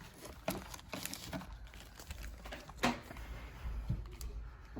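Small metal lock-cylinder wafers clicking and tapping as they are handled and fitted by hand, with one sharper click about three seconds in.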